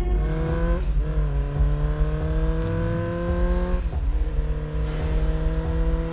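Motorcycle engine accelerating: its pitch climbs steadily and drops sharply at gear changes, about a second in and again about four seconds in.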